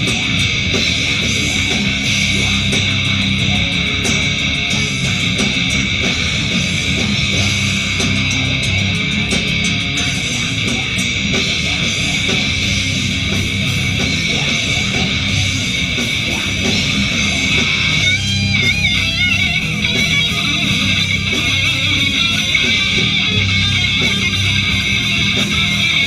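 A live rock band plays loud and steady: distorted electric guitars, bass and drums. About eighteen seconds in, a higher wavering lead line comes in over the band.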